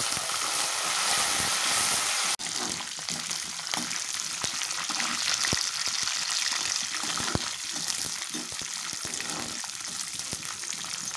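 Peanuts, dals, green chillies and curry leaves sizzling in hot oil in a nonstick kadai for a South Indian tempering, stirred with a slotted spatula that gives occasional clicks and scrapes against the pan. The sizzling is strongest in the first two seconds, breaks off briefly, then carries on.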